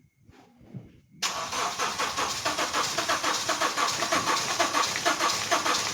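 Honda R20A four-cylinder engine being cranked by its starter motor. It starts suddenly about a second in and keeps up an even, rapid pulsing without catching. This is a crank-no-start after the engine overheated.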